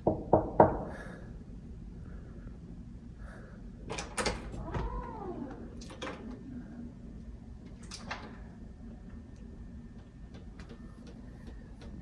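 Knocking on a hotel room door, then scattered clicks from the latch and handle as the door is opened, with a short squeak that rises and falls about halfway through, over a low steady hum.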